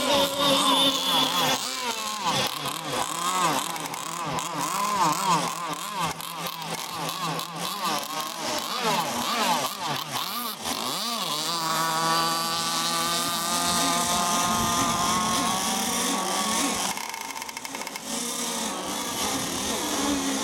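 Engines of radio-controlled racing boats running flat out, their pitch swooping up and down as the boats speed past and turn. About halfway through, one engine holds a steady high note for several seconds, then falls away.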